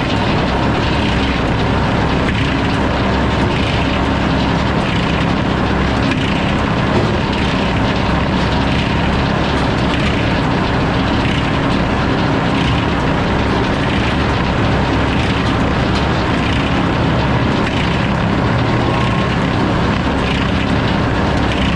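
Sawmill running and sawing through a log: a steady, loud machine drone with the hiss of the blade cutting wood and a faint regular pulse a little more than once a second.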